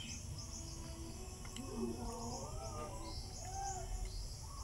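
Birds calling: repeated high chirps and a few short whistled notes in the middle, over a steady low rumble of outdoor background noise.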